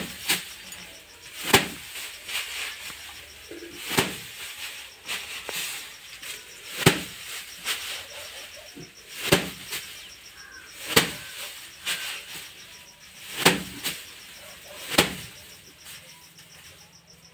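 Bundles of harvested paddy slammed by hand onto a wooden bench top to thresh out the grain. About eight hard whacks, one every two seconds or so, with straw and loose grain rustling between them. The strikes stop near the end.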